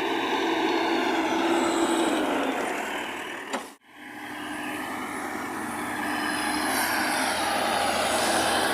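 Heavy diesel engine of construction machinery running steadily. The sound drops out suddenly about four seconds in, then fades back in and grows gradually louder.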